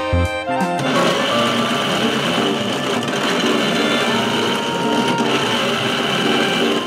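Background music; about a second in, a steady, dense whirring buzz comes in with it and carries on.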